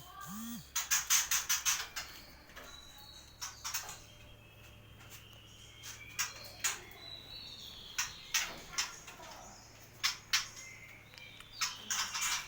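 White-rumped shamas (murai batu) in breeding cages calling: quick runs of sharp, clicky chattering notes in several bursts, with faint high chirps in between.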